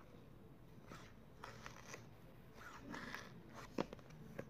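Faint rustling and scraping of hands turning a cardboard phone box over, with a few light clicks.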